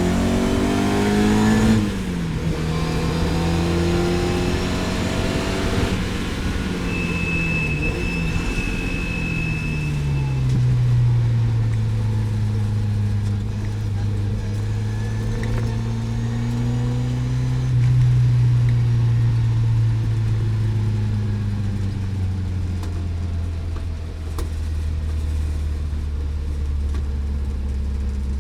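Lotus Elan GTS engine under way, the revs climbing and then falling sharply about two seconds in. It then runs on at lower revs, rising and easing off slowly.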